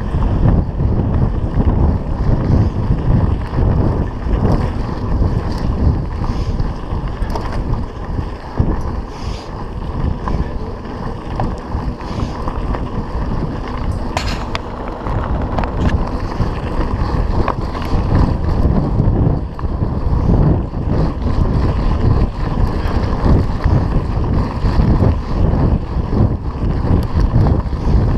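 Wind buffeting the camera microphone on a mountain bike ridden along a gravel dirt road, with the tyres crunching over loose stones and the bike rattling over bumps. A single sharp click about halfway through.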